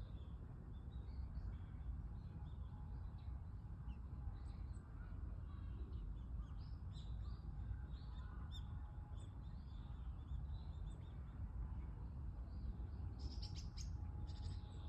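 Small birds chirping in short, scattered calls, with a quick run of rapid chirps near the end, over a steady low rumble.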